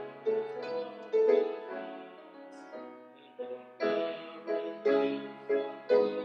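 Slow piano music, its notes and chords struck and left to die away, with a quieter stretch near the middle before louder chords return.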